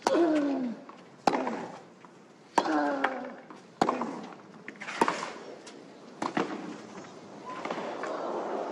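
Tennis ball struck with rackets in a fast baseline rally: six sharp hits about every one and a quarter seconds, most followed by a player's short falling grunt. Crowd noise swells near the end.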